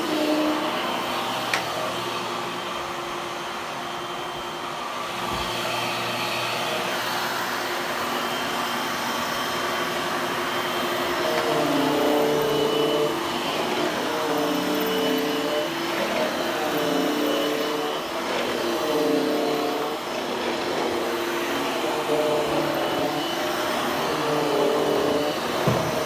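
Hushtone upright vacuum cleaner running on its low power setting over olefin carpet. In the second half its motor note dips and recovers in a regular rhythm, about once every second and a half, with each push-and-pull stroke.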